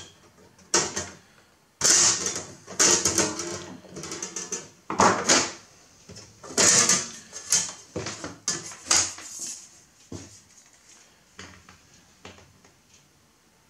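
Sheet-metal shield cover being worked loose and lifted off the analog section of an HP 3455A voltmeter: irregular metallic scraping and clattering in bursts, dying down to a few light clicks over the last few seconds.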